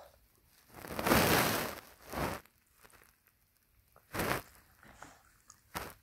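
Small Lhasa-Maltese dog sneezing and snorting through a congested nose: four noisy bursts of air, the first and loudest about a second in and lasting about a second. The dog has nasal discharge and constant sneezing, which the owner suspects comes from a loose molar whose root reaches the nasal cavity.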